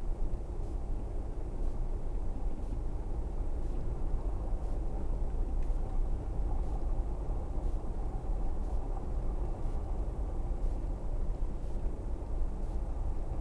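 Steady low rumble of a car's engine and tyres at slow road speed, heard from inside the cabin.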